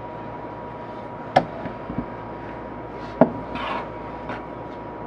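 Wooden rolling pin knocking and rubbing against the rim of a baking pan as it is rolled across the edge to cut off the excess pie crust dough: two sharp knocks about two seconds apart, a few lighter taps, and a brief scrape near the end. A faint steady high hum runs underneath.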